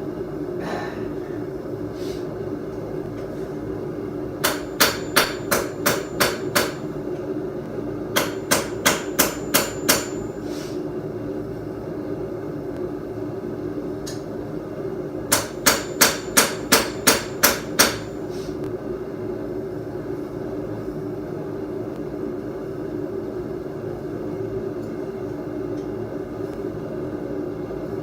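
Blacksmith's hammer striking steel on an anvil in three quick runs of about six to eight blows each, every blow with a bright ring, over a steady hum.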